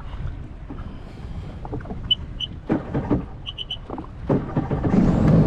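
Jet ski on the water: a low rumble with a few knocks, two short electronic beeps and then three more in quick succession around the middle, and about five seconds in the engine comes up louder into a steady hum.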